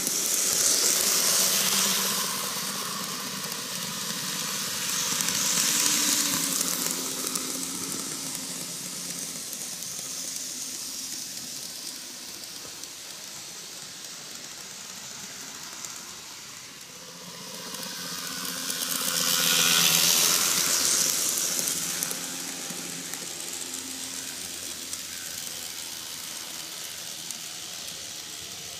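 N-gauge model trains (Tomytec Tetsudou Collection Keihan 600 series) running on TOMIX superelevated double-track curves: a steady whirring hiss of motors and wheels on rail. It swells loudly each time a train runs close by, about a second in, around six seconds, and again around twenty seconds.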